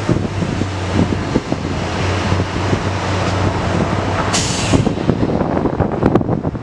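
Steady low engine hum with wind buffeting the microphone, and a short sharp hiss of air about four and a half seconds in.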